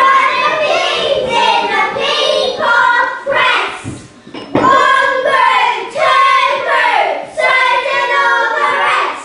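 A small group of children singing together in sung phrases, with a brief pause about four seconds in.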